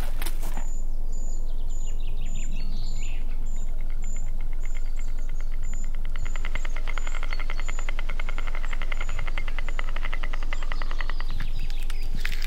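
Birds calling in a pine forest: a short high chirp repeated about twice a second, and a long, fast trill in the middle, over a steady low hum.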